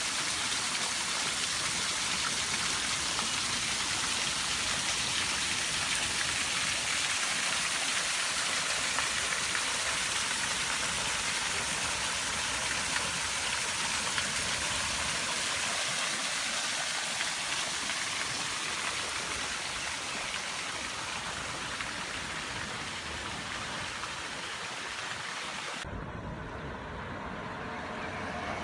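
Raw sewage cascading down a cliff and splashing over a wall into a pool: a steady rushing, splashing water noise. Near the end it cuts off abruptly to a much quieter outdoor background.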